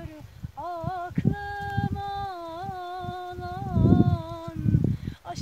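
A woman's voice singing a slow tune in long held notes, one short phrase and then a note held for several seconds with small bends. Gusts of wind rumble on the microphone underneath, strongest near the end.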